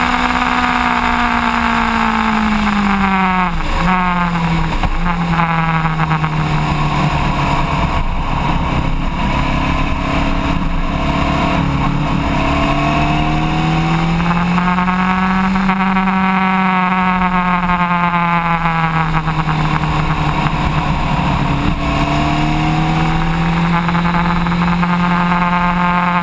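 Sport motorcycle engine running hard at track speed. Its pitch drops sharply twice about four seconds in, then rises and falls in long, slow sweeps as the bike goes through the corners.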